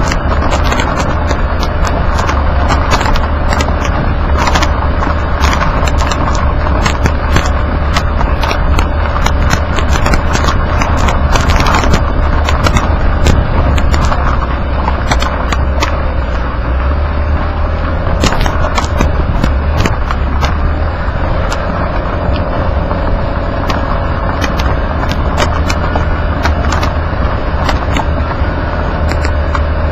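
Underbody road noise from a Nissan Kix 4WD driving on a dirt road: a constant low rumble of tyres and wind with frequent sharp clicks of grit and small stones striking the underside, over a faint steady hum.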